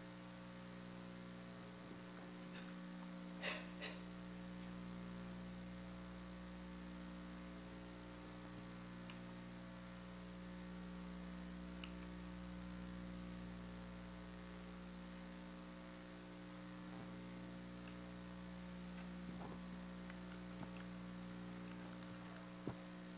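Steady electrical mains hum, with a short sharp noise about three and a half seconds in, another near the end, and a few faint ticks between.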